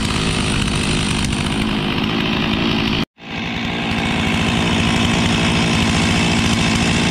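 Brand-new Stihl MS 362 two-stroke chainsaw running steadily on its first start, its carburettor not yet adjusted. The sound drops out for an instant about three seconds in, then the saw is running again.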